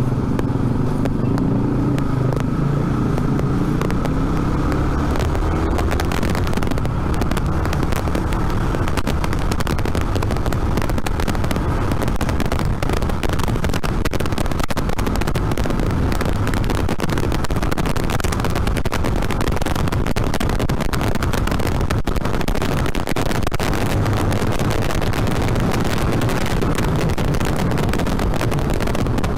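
2007 Yamaha Vixion's single-cylinder four-stroke engine pulling as the motorcycle accelerates. Wind rushes over the microphone and grows stronger after the first few seconds.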